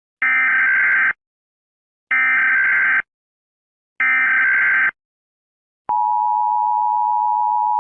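Emergency Alert System SAME header: three bursts of warbling digital data tones, each just under a second long and about a second apart. They are followed by the EAS two-tone attention signal, held steady for about two seconds and stopping abruptly near the end.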